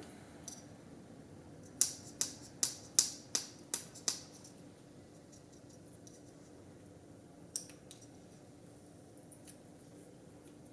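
Small hand tool clicking sharply during close work on small parts: about seven quick clicks, roughly three a second, then a single click a few seconds later, over a faint steady hum.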